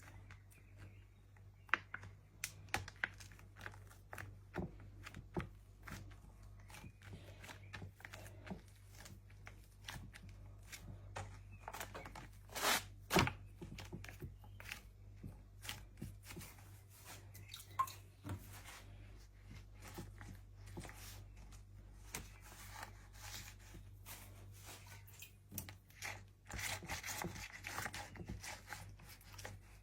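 A sheet being handled while food is prepared by hand: crinkling and rustling, with scattered small clicks and taps. The longest crinkling comes near the end, over a steady low hum.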